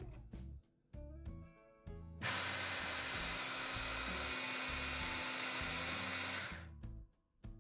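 Electric food chopper grinding rolled oats: a burst of about four seconds starting a couple of seconds in, a loud even grinding rush over a steady motor hum, which cuts off near the end. Background music plays before and after it.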